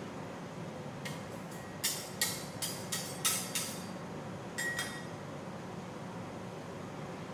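Metal spatulas scraping and tapping on the steel cold plate of an ice cream roll pan: a quick run of about half a dozen strokes between two and four seconds in, then two more near five seconds, over a steady low hum.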